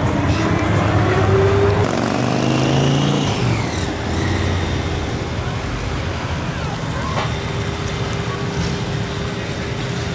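Classic cars rolling slowly along a street, their engines running low and steady, louder in the first couple of seconds, with traffic noise and voices around.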